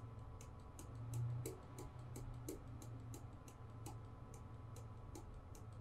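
Faint, regular clicking, about three clicks a second, over a low steady hum.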